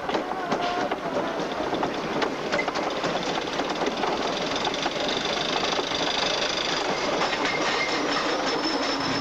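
Wooden roller coaster train rolling onto and up the chain lift hill: a steady clatter of wheels and lift chain with rapid clicking, and a steady high whine joining about three seconds in.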